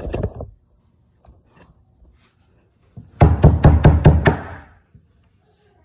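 A fist tapping on an IKEA Malm bed's particleboard panel to seat the fittings: a brief knock at the start, then a quick run of about eight knocks about three seconds in.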